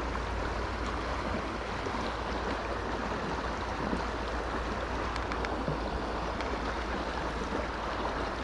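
Steady rush of the Fraser River's flowing water, with a few faint scattered ticks.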